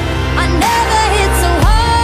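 Pop music track with a heavy bass line, drum hits and a melody whose held notes slide up and down in pitch.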